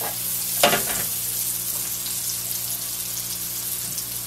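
Sliced wild mushrooms frying in butter in a skillet on a gas stove: a steady sizzle as a spatula turns them, with one short louder sound about half a second in.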